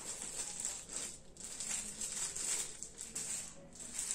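Irregular rustling and a few soft knocks from a white metal mesh basket with a wooden handle being lifted and turned in the hands.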